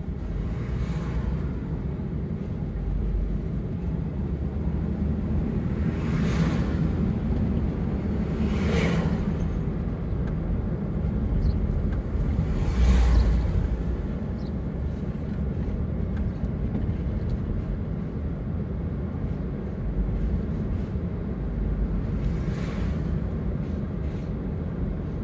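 Road noise inside a moving car's cabin: a steady low rumble of engine and tyres, with a few short swells of noise, the loudest about halfway through.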